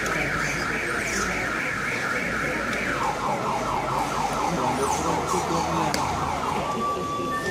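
Electronic car-alarm-style siren warbling rapidly in a high tone, dropping to a lower, still rapidly warbling tone about three seconds in, then switching to steady beeping tones near the end.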